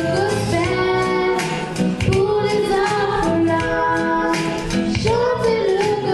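Girl soloist singing a gospel song into a microphone, with musical accompaniment and the children's choir behind her.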